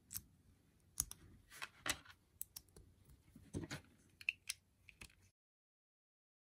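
Small LEGO plates clicking together as they are pressed and handled: a string of short, irregular plastic clicks that stops about five seconds in.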